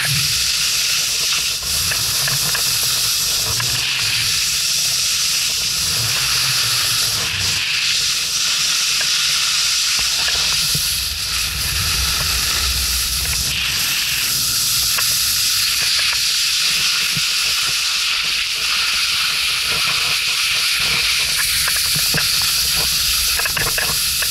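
Continuous hiss of skis sliding and carving over snow, mixed with wind rushing over the camera's microphone as an uneven low rumble.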